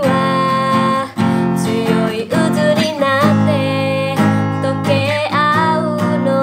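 A woman singing a song in Japanese while strumming chords on a steel-string acoustic guitar.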